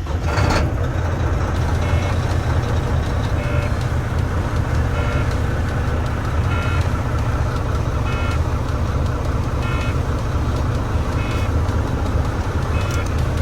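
Semi truck's diesel engine running steadily after start-up, with a short electronic warning beep from the dash repeating about every one and a half seconds.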